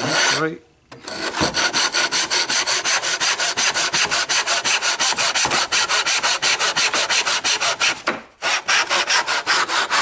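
Hand backsaw cutting through a 12 mm timber board held in a mitre box, with rapid, even back-and-forth strokes. The sawing starts about a second in, right after the kerf was set with three pull strokes, and breaks off briefly near the end before going on.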